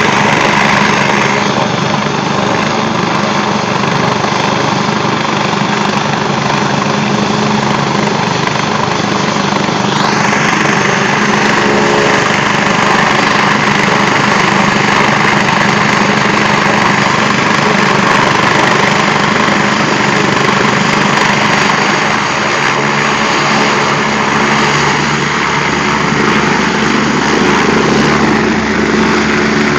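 Air ambulance helicopter's turbine engines and main rotor running steadily on the ground just before lift-off.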